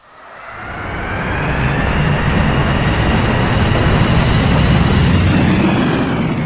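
Aeroplane flying past: the engine roar swells up from nothing over a couple of seconds into a loud, full rush and begins to fall away near the end.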